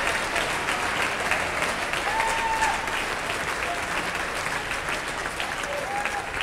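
Church congregation clapping and applauding, with a voice calling out over the clapping about two seconds in and again near the end.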